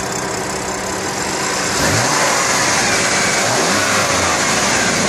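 2015 BMW M4's twin-turbocharged inline-six idling, then revved up twice about two seconds in and again about halfway through, falling back toward idle near the end. The revs are kept below 4,000 rpm because the engine is brand new.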